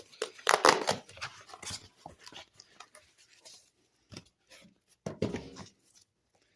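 A mailer being torn open and handled, with short bursts of tearing and rustling packaging and a few clicks and knocks.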